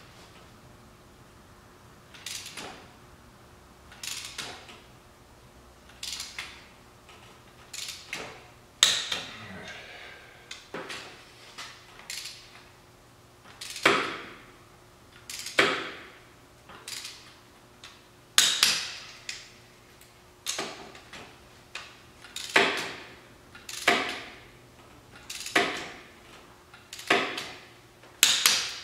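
Click-type torque wrench tightening cylinder head bolts to 52 foot-pounds in a crossways pattern: a sharp metallic click about every one to two seconds, some louder than others.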